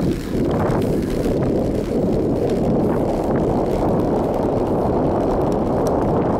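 Wind buffeting the microphone during a fast bicycle descent: a steady, loud low rumble.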